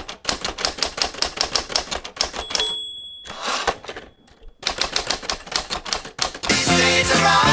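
Rapid mechanical clacking in bursts, with a single short bell-like ding about two and a half seconds in and a brief lull near the middle. Music comes in near the end.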